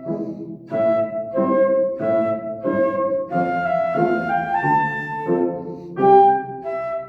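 Flute playing a simple melody in short phrases with breath gaps between them, over a piano accompaniment.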